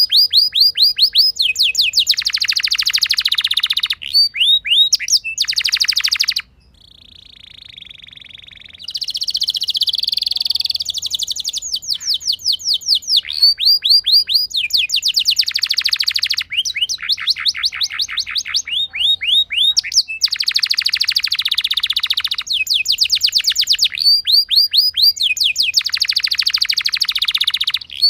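Domestic canary singing a long rolling song: rapid trills of fast repeated notes, switching to a new trill every second or two. About a third of the way in the song drops to a softer, lower warble for a couple of seconds, then the loud trills resume.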